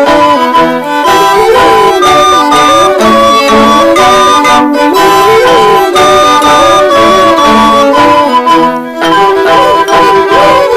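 Irish traditional dance tune in a brisk lilting rhythm, played by several fiddles and tin whistles in unison, with voices joining the melody.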